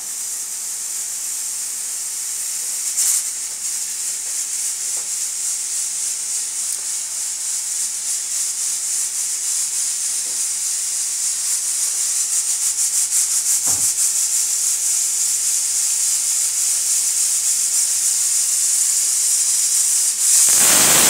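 United aluminium pressure cooker building pressure on a gas stove: a steady high hiss with a fast flutter grows slowly louder. About a second before the end the weight lifts and steam rushes out loudly: the cooker's whistle.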